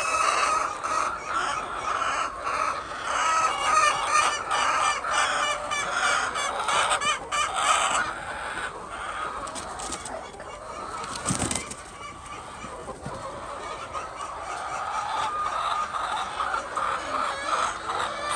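A flock of egg-laying chickens clucking and calling together, busiest over the first half and thinning to a steadier background chatter later on.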